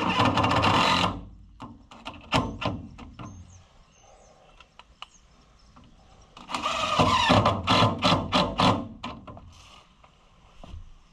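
Screws being driven with a power drill: a one-second run, some sharp knocks, then a longer run of about two and a half seconds with rapid clicking and clattering.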